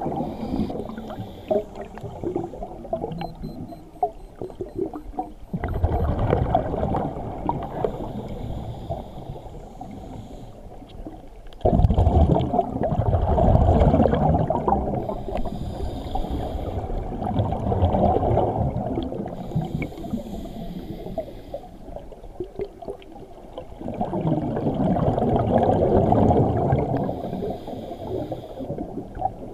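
Scuba diver breathing through a regulator underwater: exhaled air bubbles out in long gurgling bursts a few seconds each, with short hissing inhalations in the quieter gaps between.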